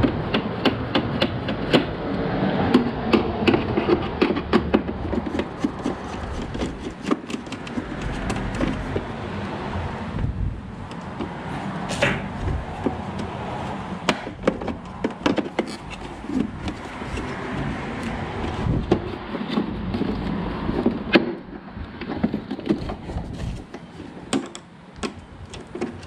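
Irregular knocks, taps and clicks of the pool robot's plastic parts being handled while it is taken apart or put back together, over a steady background hiss.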